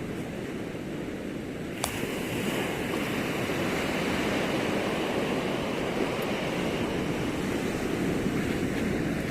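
Sea waves at high tide, a steady rushing wash of surf, growing a little fuller after a brief sharp click about two seconds in.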